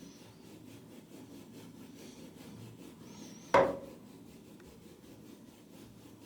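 Damp horsehair shaving brush being stropped on a folded towel to dry it: a soft, faint rubbing, with one sharp knock a little past halfway.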